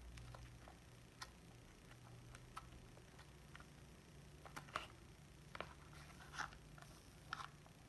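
Near silence with faint, scattered clicks and taps from Play-Doh modelling clay and small plastic tools and moulds being handled.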